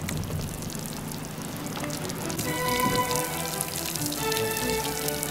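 Water pattering and dripping onto wet pavement, a steady splashy hiss. Music with held notes comes in a little before halfway.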